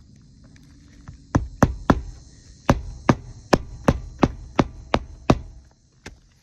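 Hammer driving nails into a roof shingle: three quick blows, a short pause, then eight steady blows at about three a second.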